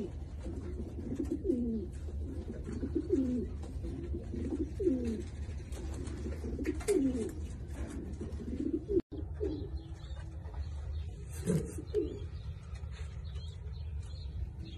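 Domestic pigeons cooing: a run of low, rolling coos about once a second, over a low steady hum. There is a brief dropout about nine seconds in, after which the coos come more sparsely.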